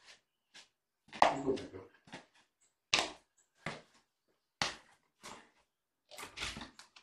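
A series of soft thumps and scuffs, about one every three-quarters of a second: footsteps in socks and slippers on a laminate floor.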